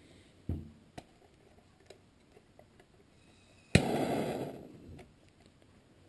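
Propane torch lighting: a sharp pop almost four seconds in, then the rush of the flame, fading over about a second to a low flame. A few faint clicks come before it.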